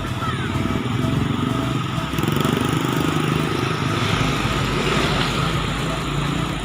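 Road traffic passing, a steady run of motorcycle and other vehicle engines.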